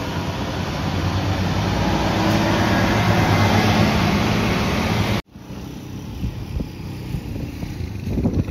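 Hino 700 (Profia) tractor unit's diesel engine running as the truck drives past close by pulling a lowboy trailer, with tyre and road noise. The sound cuts off abruptly about five seconds in, leaving quieter street noise.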